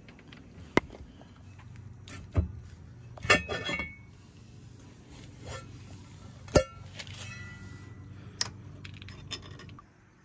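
Metal parts and tools clinking and knocking while being handled, about eight sharp taps, a few of them ringing briefly.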